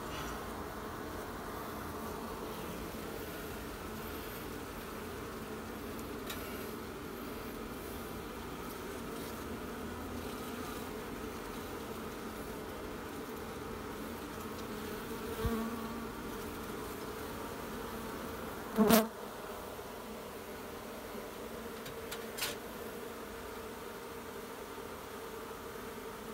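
A disturbed feral honey bee colony buzzing steadily as its comb is broken out of a wall cavity and lifted by hand. A single sharp knock sounds about three quarters of the way through, with a couple of fainter ones a few seconds either side of it.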